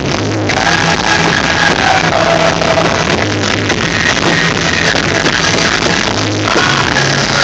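Loud music in an electronic rock style, with a bass line that changes note every second or so and a melody line above it.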